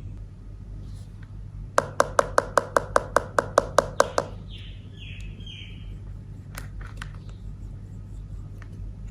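A quick run of about a dozen evenly spaced clicks, roughly five a second, lasting about two seconds. A few short falling chirps follow, then a couple of single clicks.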